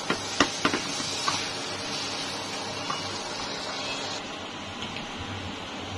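Wooden spatula stirring washed rice through fried spices in an aluminium pot: a steady scraping rustle of the grains, with a few sharp knocks of the spatula on the pot in the first second or so, easing off at about four seconds.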